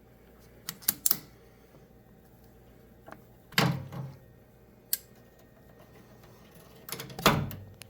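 Tools and small engine parts being handled during a fuel filter change: scattered sharp clicks, with two louder knocks about halfway through and near the end.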